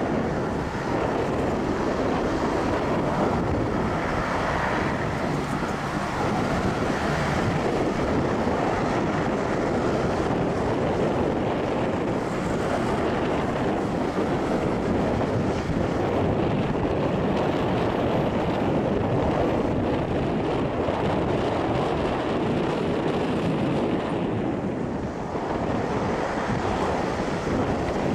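Boeing 777-200's two GE90 turbofan engines at takeoff thrust, heard from behind: a loud, steady roar as the airliner rolls down the runway, lifts off and climbs away.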